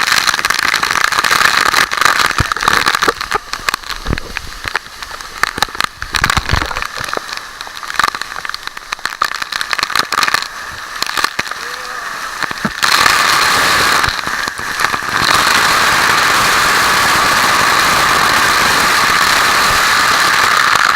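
Waterfall rushing, its roar overlaid with crackling and clicks during the first dozen seconds; a little past halfway the rush turns steady and louder.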